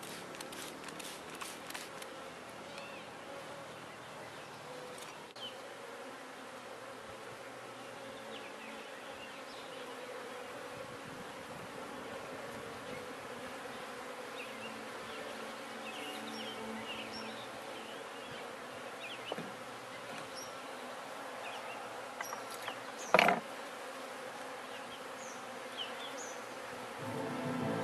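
Many agitated honeybees buzzing steadily around an opened top bar hive as the comb is cut out. There is a run of quick ticks in the first two seconds and one brief sharp knock late on.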